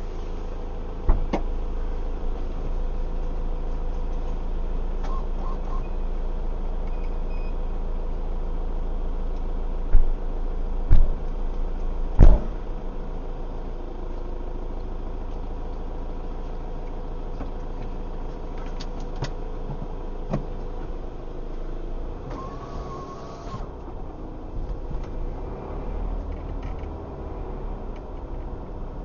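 A car idling, heard from inside the cabin as a steady low hum. Three sharp thumps come about ten, eleven and twelve seconds in.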